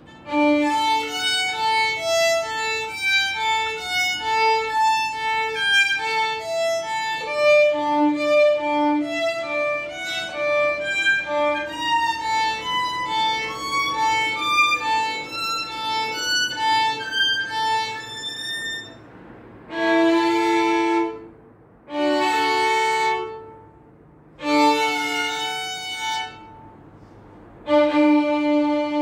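Solo violin played with the bow: a quick run of short notes, then, about eighteen seconds in, four long held notes with short breaks between them, ending the piece.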